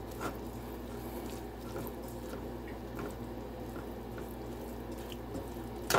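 Stir fry of vegetables and sausage sizzling in a nonstick pot while being stirred with a spatula, with scattered soft ticks and scrapes over a steady low hum.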